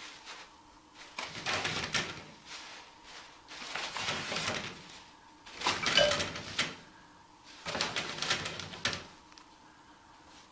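Toilet paper rustling and crinkling in four rough bursts of about a second each as a kitten tugs it down off the roll.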